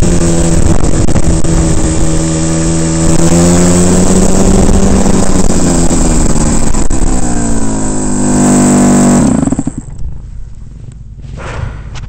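Rotax 125 two-stroke kart engine heard onboard under load, its pitch dipping and climbing again several times as the kart runs through corners. About nine and a half seconds in the engine sound drops away abruptly, leaving a much quieter steady noise while the kart rolls on.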